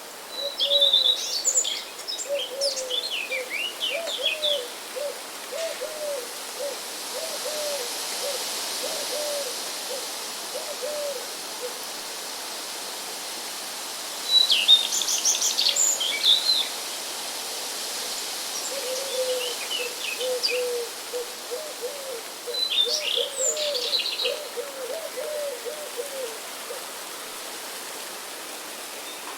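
Outdoor ambience of wind and rain as a steady background, with songbirds chirping in short flurries and a bird giving long runs of short, low hooting notes.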